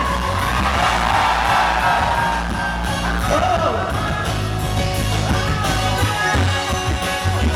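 Live pop-rock band playing at full volume while a concert crowd screams and cheers, answering the singer's call for screams.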